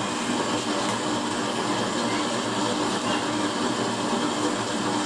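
Used-oil burner stove running: a steady roar of forced-air flame with an even, motor-like hum underneath.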